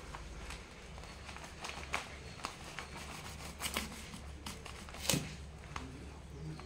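Scattered faint clicks, scrapes and rustles of a small knife working into the spiky rind of a ripe jackfruit around its stem, and the fruit shifting on newspaper, with the sharpest knock about five seconds in, over a low steady hum.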